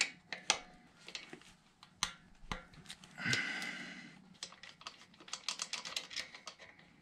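Steel open-end wrench clicking and clinking against the fuel-injection line nuts as the hard lines are loosened on a small Kubota diesel injection pump. A short ringing clink comes about three seconds in.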